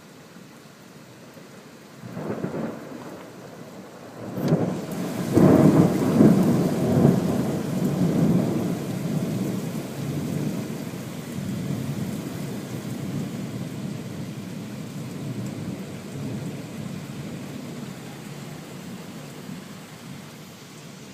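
Steady rain with close thunder: a short rumble about two seconds in, then a sharp crack a couple of seconds later that opens into a long, low rolling rumble, loudest for a few seconds and slowly fading.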